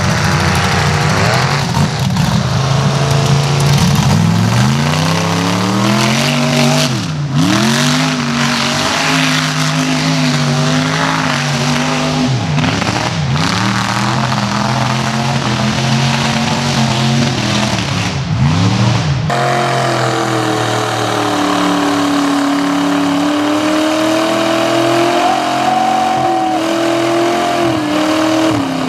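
Mud-bog trucks' engines running hard at high revs through deep mud. The pitch sags and climbs back several times as the trucks bog down and recover. About two-thirds of the way in there is an abrupt change to another truck's engine held at high, slowly wavering revs.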